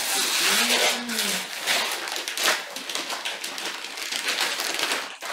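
Tissue paper rustling and crinkling as it is pulled out of gift boxes, a dense run of crackles throughout.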